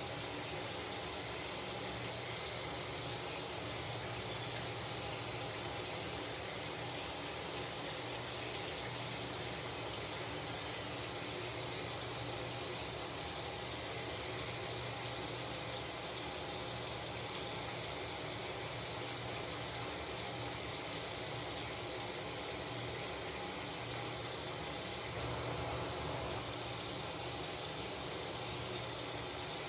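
Water running steadily from a bathroom tap.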